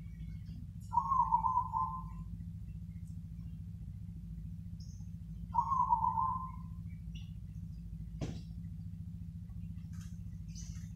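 Zebra dove (perkutut) cooing: two phrases of its rolling song, each about a second long, some four seconds apart, over a steady low hum, with a single faint click near the end.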